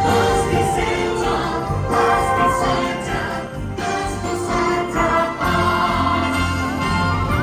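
Christmas music with jingle bells ringing and a choir singing.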